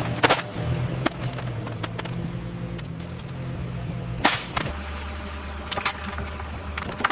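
A steady low rumble with a few sharp knocks and clacks at irregular intervals; the rumble drops lower about four and a half seconds in.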